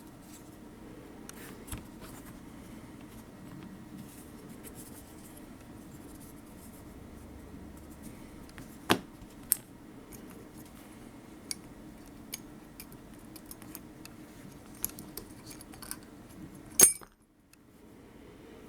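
Small metal parts of a disassembled folding knife being handled and set down: scattered light clicks and taps over a steady low hum, with a sharper metallic click near the end.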